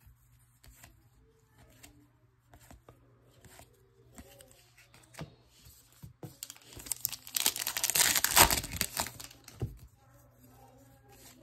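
A trading-card pack's wrapper being torn open and crinkled: a loud, noisy rip lasting about two seconds, past the middle. Before it, soft clicks of cards being handled and set down on a table.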